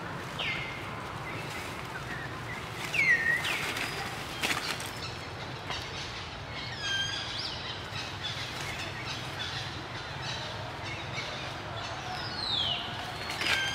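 Short high chirping or squealing calls, each sliding down in pitch, heard a few times a few seconds apart, with brief scuffles and rustles in between.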